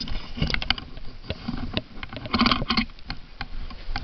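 Footsteps on a paved sidewalk: a run of irregular scuffs and clicks, thickest about halfway through.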